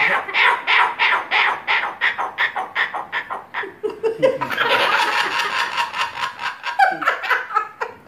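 Laughter in a quick run of short repeated bursts for about four seconds, then a longer rasping stretch and a few more bursts near the end.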